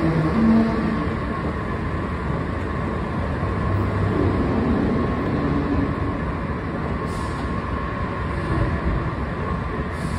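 Subway station ambience: a steady mechanical drone with a steady high hum, heard from a running escalator at the station's fare-gate level.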